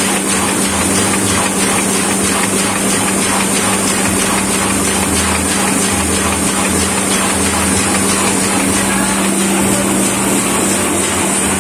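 Sheet-fed offset printing press running: a steady machine hum with a rapid, even mechanical clatter.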